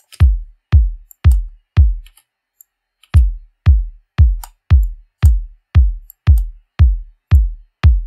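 An electronic kick drum sample played on its own at about two hits a second, each hit a short click falling into a deep boom. After four hits it stops for about a second, then starts again. The producer hears a boxy tone in it that he means to cut with EQ.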